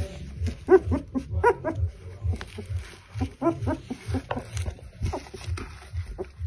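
Puppy whimpering and growling softly in its sleep while dreaming, with short whines and yips several times. A soft low thump repeats about twice a second underneath.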